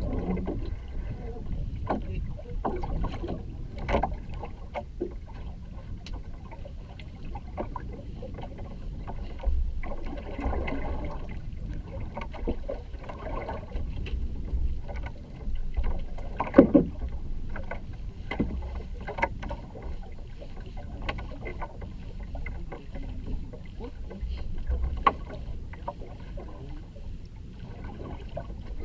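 Small boat on the sea: water sloshing and splashing over a steady low rumble, with scattered sharp knocks, the loudest about sixteen seconds in.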